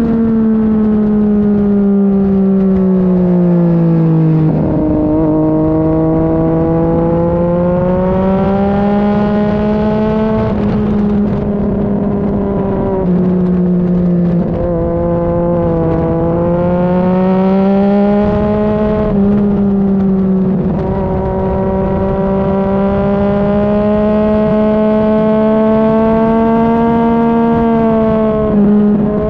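Sport motorcycle engine ridden hard at track speed, heard from close behind the rider. The pitch falls for about four seconds as the bike slows, then climbs in long pulls broken by several brief dips at gear changes, over a constant rush of wind.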